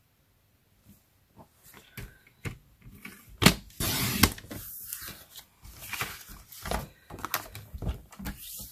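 A paper trimmer's blade slider drawn along its track, slicing through thick cardstock in one stroke of about a second, starting with a sharp click about three and a half seconds in. Around it come clicks and rustles of the cardstock being slid and positioned against the trimmer.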